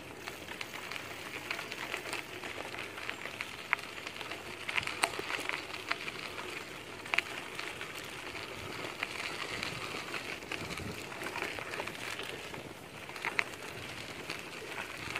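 Bicycle tyres rolling over a dirt and gravel trail: a steady crackling hiss with scattered sharp ticks from small stones.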